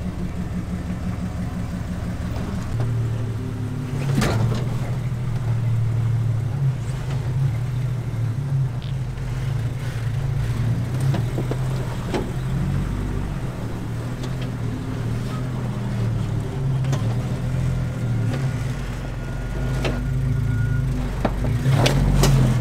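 Jeep Cherokee XJ engine running at crawling pace as the truck climbs over rock ledges, with a few sharp knocks from the truck or its tyres on the rock.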